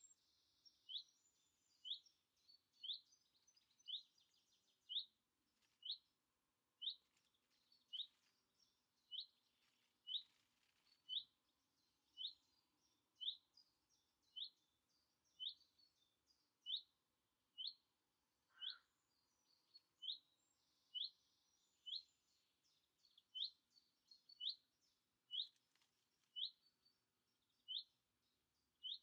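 A small songbird repeating one short rising call note about once a second, steady and unvarying, with fainter twittering from other birds now and then.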